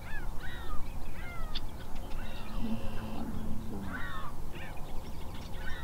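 Birds calling: a string of short harsh calls, each falling in pitch, about one or two a second, over steady low background noise.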